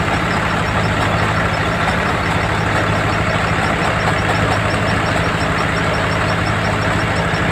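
Soybean harvesting machine running steadily: a diesel engine drone with a fast, regular high ticking over a broad mechanical clatter.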